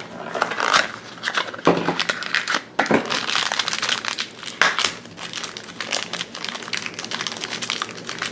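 A small foil blind bag crinkling and crumpling in the fingers as it is opened, with a few sharper crackles.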